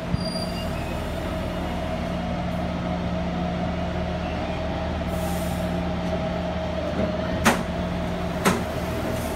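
Taipei Metro electric train standing at the platform, its onboard equipment humming steadily. There is a short high hiss about five seconds in, and two sharp clicks about a second apart near the end.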